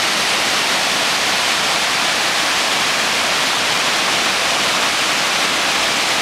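Waterfall cascades and whitewater rapids: a steady, even rush of falling water.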